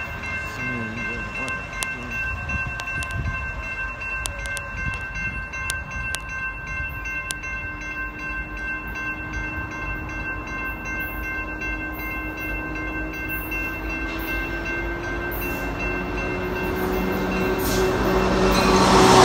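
Railroad crossing signal bell ringing steadily while a freight train approaches. The train grows louder over the last few seconds.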